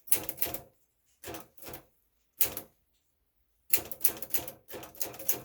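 Typing on a 1962 Smith-Corona Sterling manual typewriter, its keys clacking in short uneven runs. A pause of about a second comes near the middle, then faster, almost continuous typing.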